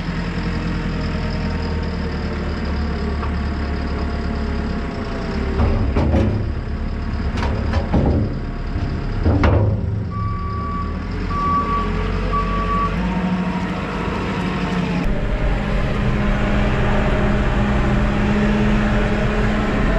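JCB telehandler's diesel engine running, with several sharp clunks about halfway through and then three short beeps. From about fifteen seconds in the engine note rises and holds steady as the machine pulls away.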